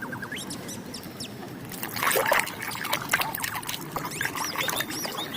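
Water splashing and trickling as a muddy plastic toy animal is rinsed and rubbed clean, busier from about two seconds in, with a few short squeaks near the end.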